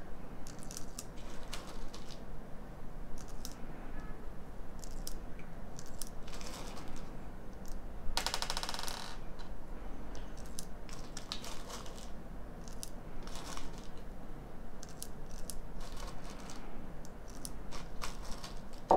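Steel .177 BBs being loaded by hand into a CO2 pistol's stick magazine: scattered small metallic clicks, with a brief rattle about eight seconds in.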